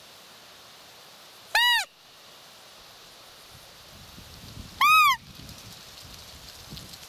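Two short, loud calls about three seconds apart, each rising then falling in pitch, made by the hunter to scare a roe deer buck.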